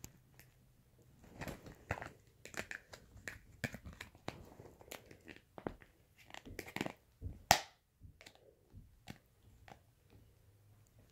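Homemade slime being squeezed and poked by hand, making irregular sticky clicks and crackling pops, with one sharper, louder pop about seven and a half seconds in.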